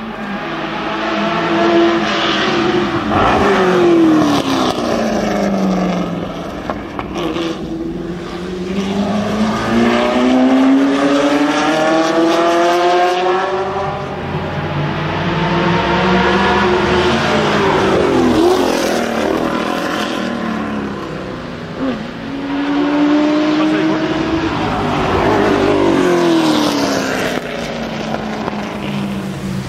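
Ford GT40 Mk II's V8 racing past on track. The loud exhaust note climbs steadily under hard acceleration and drops away as the car passes, several times over.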